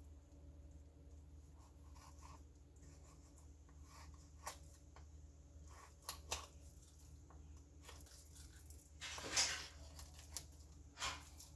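Knife cutting and scraping along a raw chicken carcass to free the breast meat: faint, scattered short scrapes and small knocks, with a longer scrape about nine seconds in.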